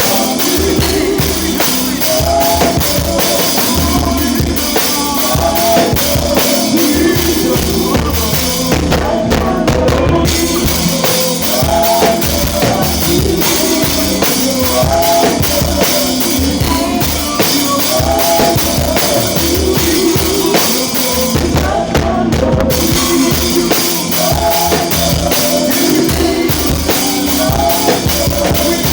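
A live gospel worship band playing an instrumental groove, led by a drum kit with bass drum, snare, rimshots and cymbals, under a short melodic phrase that repeats about every two seconds. The cymbals drop out briefly twice, about a third of the way in and again near three quarters.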